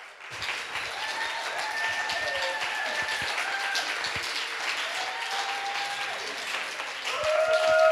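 An audience applauding, starting suddenly just after the start, with a few voices calling out over the clapping. The applause grows louder near the end.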